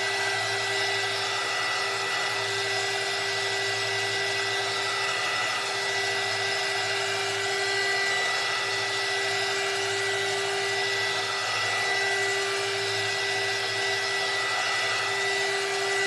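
Handheld craft heat gun (embossing heat tool) blowing steadily while it dries wet decoupage medium: an even fan rush with a thin, high, steady whine and a lower hum.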